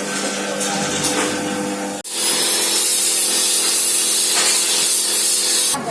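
An onion sorting machine running: a steady machine hum under a hissing rush. About two seconds in, the sound jumps abruptly to a louder, brighter rush, which stops suddenly just before the end.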